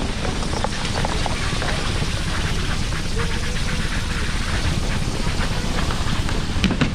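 Steady rumble and hiss of a chairlift bottom station running, its bullwheel and loading conveyor turning, with wind on the microphone and a couple of sharp clicks near the end.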